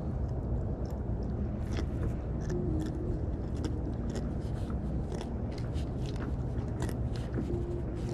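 Scattered small clicks and scratchy crunches of a hooked grunt being handled and unhooked by hand, over a steady low rumble.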